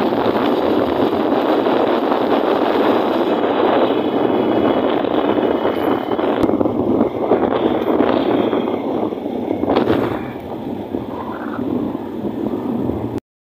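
Wind rushing over the microphone of a moving Honda motorcycle, with the engine and road noise underneath. It stops suddenly near the end.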